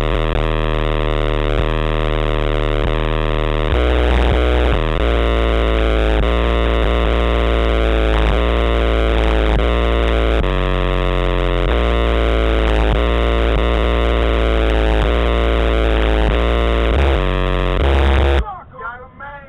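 Loud, bass-heavy music played through Sony Xplod car subwoofers, heavily distorted in the recording, with a deep bass line that steps to a new pitch every few seconds. It cuts off suddenly about a second before the end.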